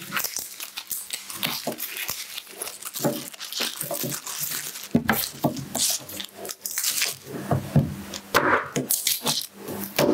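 Dry garlic skins crinkling and tearing as a bulb is broken into cloves and peeled by hand. In the second half, a knife knocks and scrapes on a cutting board as cloves are trimmed.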